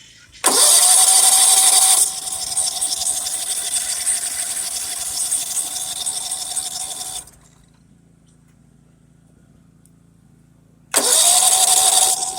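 Electric starter on a DR wood chipper whining up to a steady whir as the key is turned, held for several seconds and then released, with a second try near the end. The engine does not catch; at this time the chipper would not start until its chute was seated on its switch.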